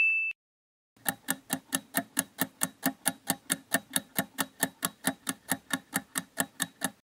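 A short ringing chime fading out at the very start, then a quiz countdown timer's ticking sound effect: evenly spaced clock ticks, about five a second, starting about a second in and stopping shortly before the end.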